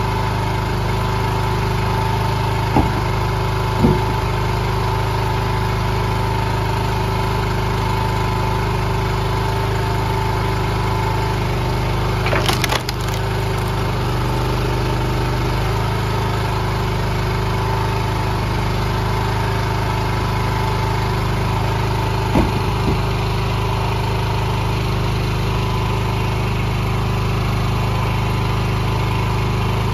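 Small gas engine of a hydraulic log splitter running steadily, with a few wooden knocks and a loud, brief crackle of wood about twelve seconds in as the wedge splits a western hemlock round.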